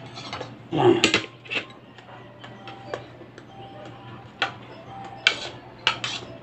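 Utensil and plate knocking and scraping as sliced bitter gourd is pushed off a tilted plate onto a bowl of rice: a handful of light, irregular clicks.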